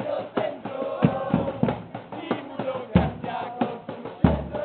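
Music with drum hits and a singing voice.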